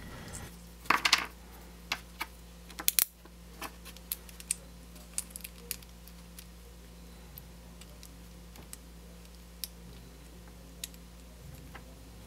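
Small metal clicks and taps of a screw and machined aluminium parts being handled and turned by hand while the screw is test-fitted into its threaded hole. Several clicks come close together in the first three seconds, then only a few scattered ticks.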